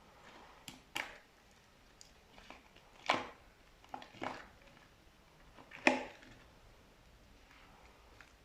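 Slime with small white pearl beads mixed in being pressed and squished by hand: about six short, sharp, wet squishes and pops at irregular intervals, the loudest about three seconds in and near six seconds.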